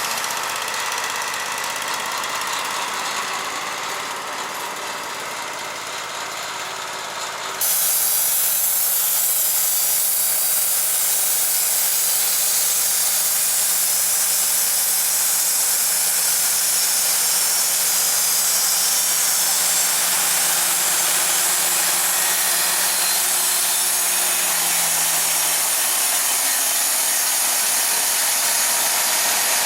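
Wood-Mizer LT35HD portable band sawmill running. It changes abruptly about eight seconds in to a louder, hissier sound with a steady hum, and the hum drops in pitch near the end.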